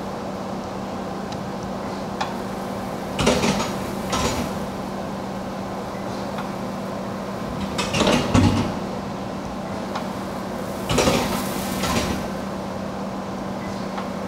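Parts catcher of a DMG Mori NLX-2500/500 CNC lathe being cycled: several loud metallic clunks and clatters a few seconds apart as it swings in and out, over the steady hum of the running machine.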